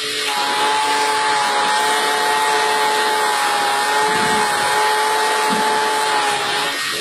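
A motor running steadily with a constant whine over a rushing noise. The whine holds its pitch and stops shortly before the end.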